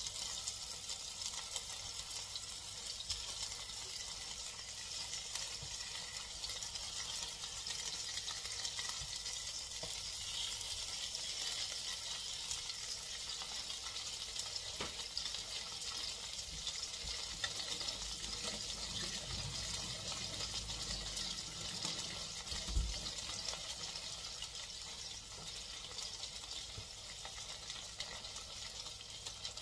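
Chicken pieces sizzling steadily in a covered electric frypan, a constant hiss, with a single low thump a little past two-thirds of the way through.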